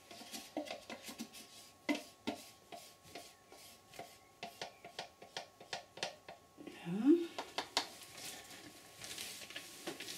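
Light clicks and taps of plastic paint cups and a pot lid being picked up and handled on a table, with a short rising hum from a voice about seven seconds in.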